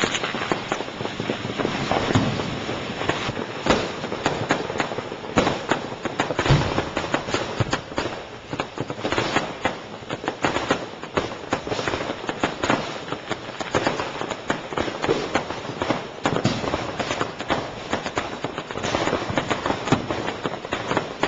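Fireworks going off in a dense, continuous barrage: many overlapping bangs and crackles at an irregular rate, with no break.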